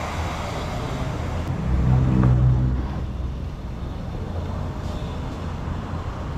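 Low motor-vehicle engine rumble, growing louder for about a second around two seconds in and then easing back to a steady background drone.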